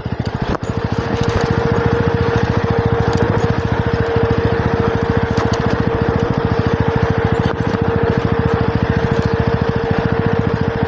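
Jawa 42 2.1 motorcycle's single-cylinder engine running steadily under way, with even rapid firing pulses and a steady whine over them. The rider calls the engine smooth.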